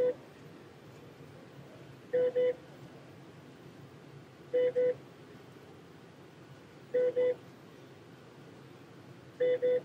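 An electronic alarm or beeper sounds a pair of short, same-pitched beeps that repeats about every two and a half seconds, four times, over a faint steady hum.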